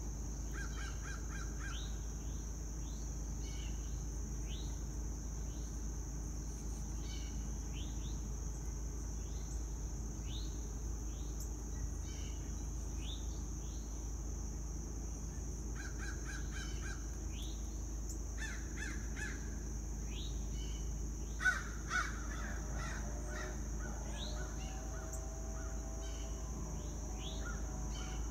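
Outdoor bird chorus: many short chirps and quick trills from small birds over a steady, high insect drone. About three-quarters through come two sharp clicks, followed by lower, harsher calls like crows cawing.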